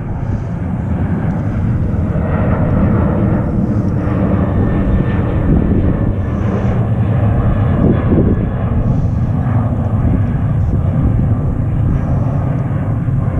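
Boat engine running steadily: a continuous low rumble with wind noise on the microphone over it.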